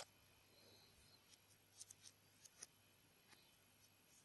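Near silence, with a few faint clicks and taps of plastic Lego Technic parts being handled and fitted together, clustered about two seconds in.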